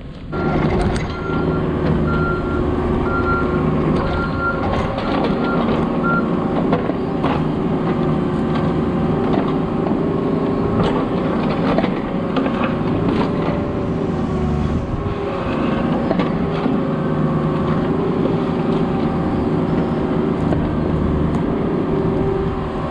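Diesel engine of a piece of heavy equipment running, its note shifting with load, with a backup alarm beeping about once every 0.8 seconds for the first six seconds. Scattered short knocks and clanks sound over the engine.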